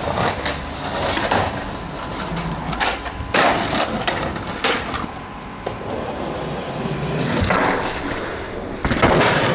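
Skateboard wheels rolling on rough asphalt, broken several times by sharp clacks of the board's tail popping and the board landing.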